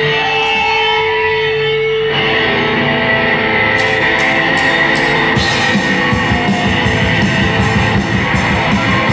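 Live rock band with distorted electric guitars and drums. A single held note sounds for about two seconds, then the full band comes in. Four cymbal hits follow, and a fast drum beat runs under the guitars from about five seconds in.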